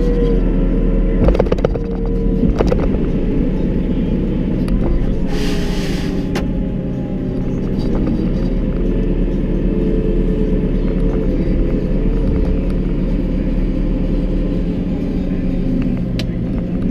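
JCB 541-70 Agri Pro telehandler's diesel engine running, heard from inside the cab, with a hydraulic whine whose pitch shifts as the boom is worked on the joystick and lowered. A couple of sharp clicks in the first three seconds and a short hiss about five and a half seconds in.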